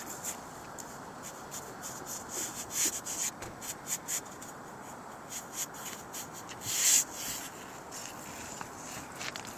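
Gloved hands rubbing and pressing down the seam of a torch-on bitumen roofing membrane, a run of short irregular scraping rubs with a louder scrape about seven seconds in, over the steady hiss of a lit propane roofing torch left burning on the roof.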